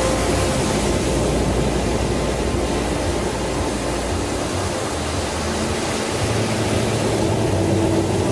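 Ocean surf breaking and washing up a sandy beach: a steady rushing noise that eases a little midway and builds again near the end.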